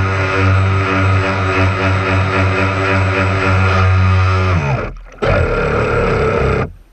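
Radio-controlled bass boat's motor running flat out with a steady buzz, then falling in pitch as the throttle comes off about four and a half seconds in. A duller, noisier sound follows for about a second and a half and cuts off suddenly near the end.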